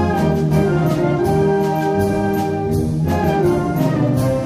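Orchestral music led by brass, with regular percussion hits.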